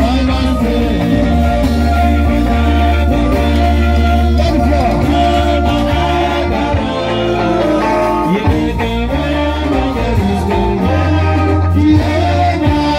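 Live band music: male voices sing over electric guitars, a strong steady bass line and hand drums.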